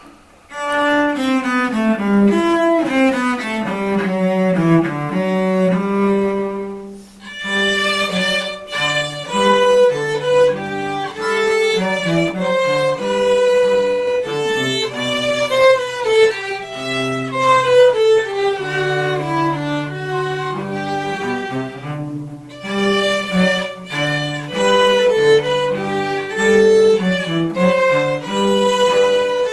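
Two violins and a cello playing a piece together, the violins carrying the melody over a cello bass line. The music starts about a second in and breaks briefly twice between phrases.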